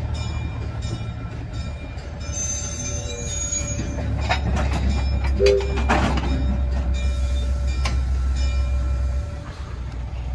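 Virginia & Truckee train with its GE 44-ton diesel locomotive: a steady low diesel rumble that grows louder about four seconds in and eases off near the end. Sharp metallic clanks and squeals from the cars and running gear come in the middle.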